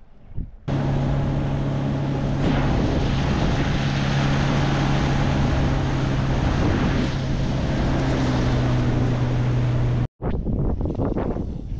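Outboard motor of a small side-console boat running at a steady speed under way, with wind buffeting the microphone and water rushing past the hull. It starts abruptly about a second in and cuts off sharply near the end.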